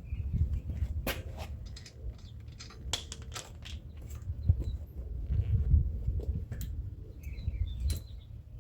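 Irregular clicks, knocks and rustling of hands and parts being handled while working at an electric mountain bike's rear wheel, over a low handling rumble.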